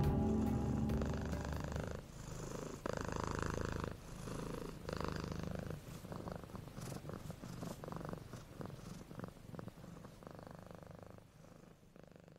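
A domestic cat purring close to the microphone, the purr swelling and fading in waves and growing fainter near the end. Background music trails off in the first second or two.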